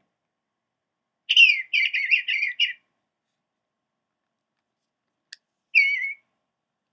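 Eastern bluebird singing a soft, warbled phrase of several quick notes, followed by a sharp click and then one short call near the end.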